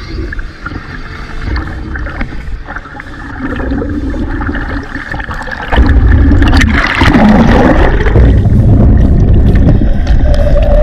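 River water splashing and sloshing around a diver's camera at the surface in a strong current. About halfway through it jumps to a loud, heavy, rumbling rush as the camera goes under.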